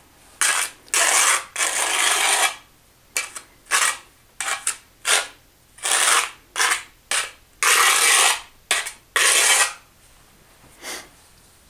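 A trowel scraping thinset mortar onto the back of a ceramic tile, back-buttering it in a quick series of short strokes with brief pauses between them.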